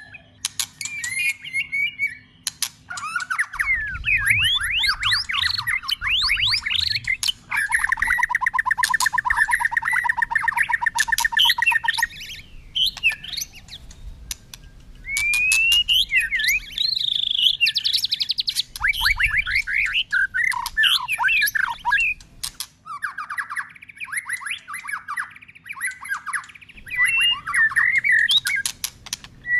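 White-rumped shama singing a long, varied song of quick rising and falling whistled notes, with a long, fast trill about a third of the way in. The phrases change again and again.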